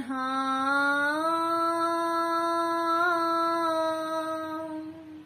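A woman singing an Urdu devotional naat unaccompanied, holding one long note. The note steps up in pitch about a second in and fades out near the end.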